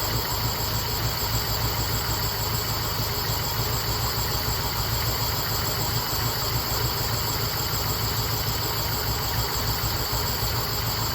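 Chevrolet 350 small-block V8 with Holley Atomic EFI throttle-body injection, idling steadily. The engine has been sputtering and losing power, and a vacuum leak is suspected.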